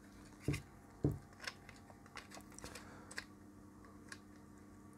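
Light clicks and knocks of a circuit board and plastic multimeter case being handled and fitted together, two sharper knocks about half a second and a second in, then a few fainter ticks.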